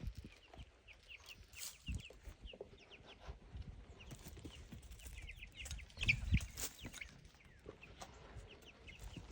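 A brood of young chicks peeping: many short, high cheeps, one after another. A few low thuds come in, the loudest about six seconds in.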